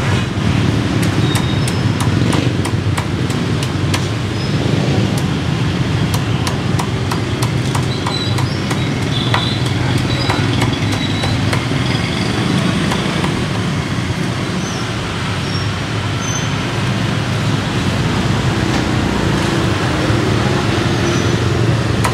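Cleaver chopping crisp-skinned roast pork on a wooden chopping block: a run of sharp, irregular chops over steady motorbike and street traffic noise.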